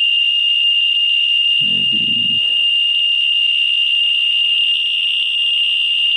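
Geiger counter's audio speaker giving a continuous high-pitched buzz: the clicks from a Ludlum Model 12 ratemeter with a CDV-700 probe run together at roughly 60,000 counts per minute. That rate is a gamma dose rate of about 100 milliroentgens per hour, presumed to come from cesium-137 trapped in the vehicle's tread.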